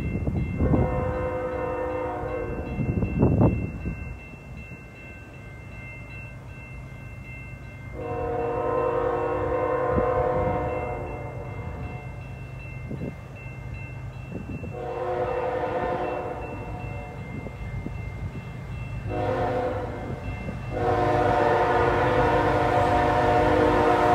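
Diesel locomotive's multi-note air horn blowing a grade-crossing signal as the train approaches: five blasts, the fourth short and the last held on. A low locomotive engine rumble runs underneath.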